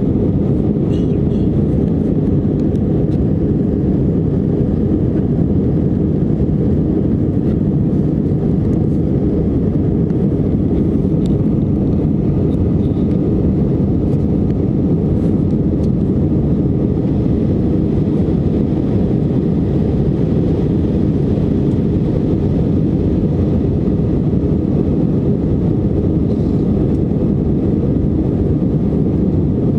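Steady low cabin noise of an Airbus A319 climbing after takeoff: engine and airflow rumble heard from inside the passenger cabin, even in level throughout.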